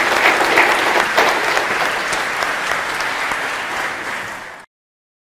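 Audience applauding: dense clapping that thins a little, then cuts off abruptly near the end.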